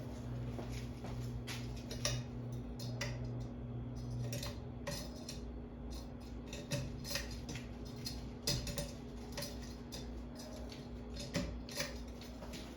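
Metal ball-chain pull chains of a ceiling fan clinking and clicking irregularly as they are handled and pulled, over a low steady hum whose lowest part stops about five seconds in.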